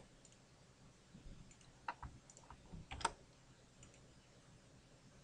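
A few faint clicks from a computer mouse and keyboard, the loudest about three seconds in.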